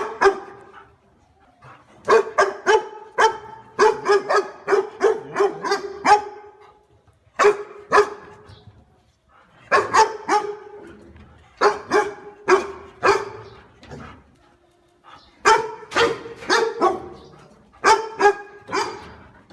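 A dog barking over and over in quick runs of several sharp barks, with short pauses between the runs.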